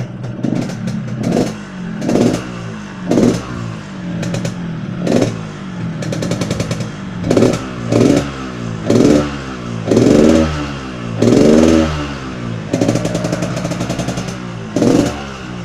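Yamaha RX-King two-stroke single-cylinder motorcycle engine idling and blipped about a dozen times, each rev rising and falling quickly back to idle, a couple held a little longer near the middle. The exhaust is tuned for the throaty 'ngorok' (snoring) note.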